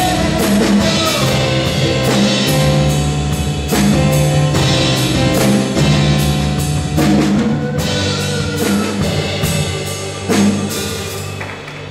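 Live rock-style worship band playing the closing bars of a song: a drum kit keeps a steady beat over electric bass and keyboard chords, and the music dies down near the end.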